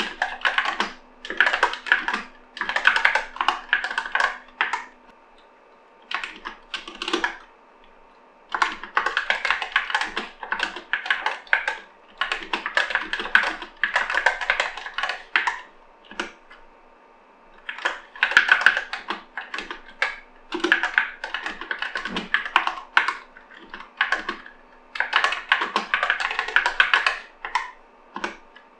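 Typing on an Epomaker SK64 mechanical keyboard with linear Gateron Optical Black switches and PBT keycaps: rapid runs of keystroke clacks in bursts of a few seconds, broken by brief pauses.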